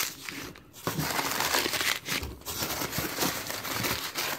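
Hands rummaging through a cardboard shipping box and its packing material: crinkling and rustling with small crackles, dropping briefly about half a second in.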